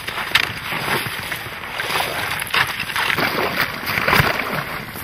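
Irregular crunching and sloshing of snow and ice slush being worked at an open hole in lake ice, a string of short scrapes and crunches.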